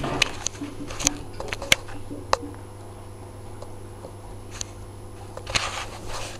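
Samsung WF9700N3W front-loading washing machine in the drain and load-distribution phase of a wool cycle. There is a steady low hum from the draining machine as the drum turns, with scattered knocks and clicks from the wet blankets shifting inside the drum.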